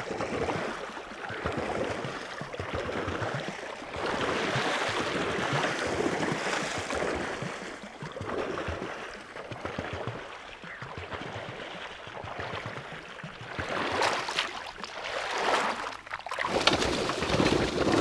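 Water churned and splashed by a pedal-driven homemade cycle boat, in uneven surges that swell and fade every second or two.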